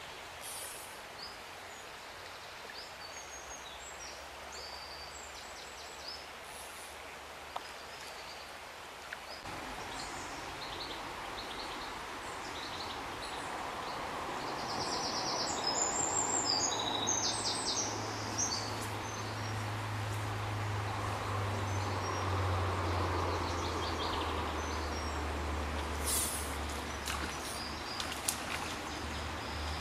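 Outdoor stream ambience: several birds chirping and singing over a steady rush of running water, which grows louder about a third of the way in. A low steady hum joins about halfway through.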